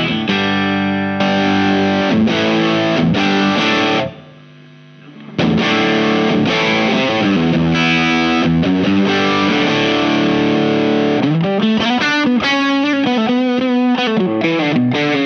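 Single-coil electric guitar (Fender Aerodyne Special Telecaster) played through a Visual Sound Jekyll & Hyde V1 drive pedal, with a distorted tone. Held chords, a short break about four seconds in, more chords, then a quicker run of single notes near the end.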